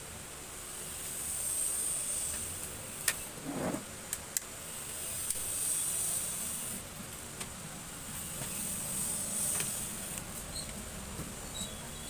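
Plastic bottom cover of an Acer A314-32 laptop being pried off its case: a few sharp clicks of the clips letting go about three and four seconds in, with a brief scrape between them. Over this, a high hiss swells and fades several times.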